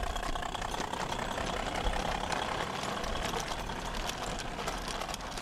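Battery radio-controlled model of a Fowler diesel-mechanical locomotive running on a garden railway track, a steady mechanical chatter with fast fine ticking from its drive and wheels on the rails.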